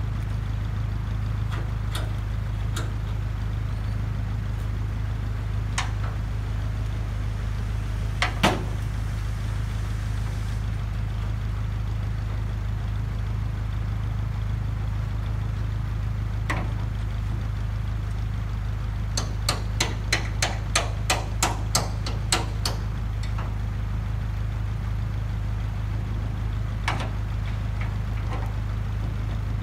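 Isuzu 4BE1 four-cylinder diesel engine of an Isuzu Elf NKR58E tipper truck idling steadily. Scattered sharp knocks sound over it, one loud one about a quarter of the way in, and a run of quick taps, about three a second, a little past the middle.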